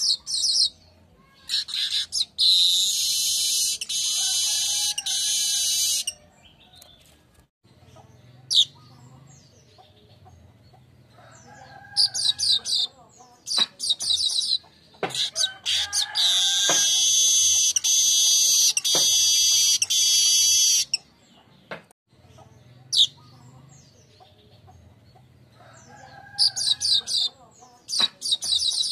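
Manyar (weaver bird) singing: runs of sharp high chirps that build into a long, loud, wheezy buzzing trill lasting several seconds, twice, about fourteen seconds apart, with scattered single chirps in between.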